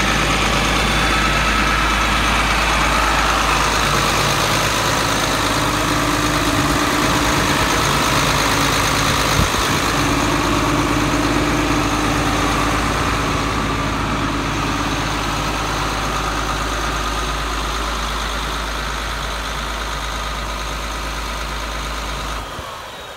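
John Deere 4850 tractor's six-cylinder turbo diesel engine idling steadily, growing fainter near the end.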